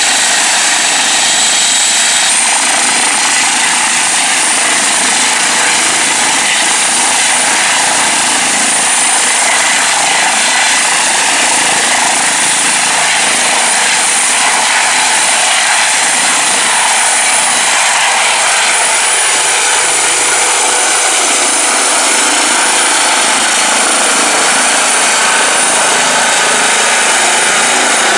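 Eurocopter EC135 T2 twin-turbine helicopter at take-off power, lifting off and climbing away. A steady high turbine whine sits over dense rotor noise, and the whine steps up slightly in pitch about two seconds in.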